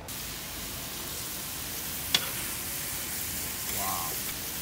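Sauced meat sizzling on a hot flat-top griddle: a steady hiss, with one sharp click about two seconds in.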